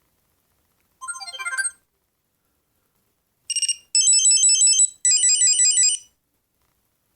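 Built-in ringtones of an Alcatel OT-808 mobile phone playing in short previews, each cut off as the next is selected. About a second in comes a quick rising run of electronic notes, and after a pause a short burst and two rapid, high, repeated electronic beeping patterns.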